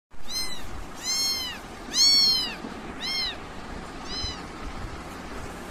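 Young ginger kitten meowing five times in quick succession. The calls are high-pitched, each rising and then falling. The third is the loudest and the last is fainter.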